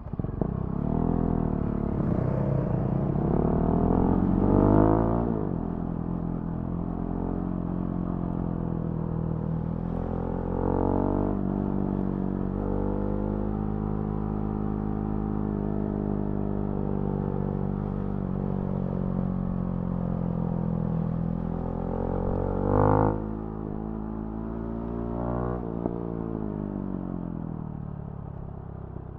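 Husqvarna Svartpilen 701's single-cylinder engine through a Remus NXT aftermarket exhaust, pulling up through the revs twice, then cruising at a steady speed. There is a short loud burst about two-thirds of the way through, then the revs fall away and it runs quieter near the end.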